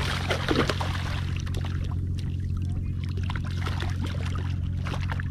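Hooked barracuda thrashing and splashing at the surface beside a kayak, strongest in the first second, then water sloshing and trickling along the hull with scattered small clicks. A steady low hum runs underneath.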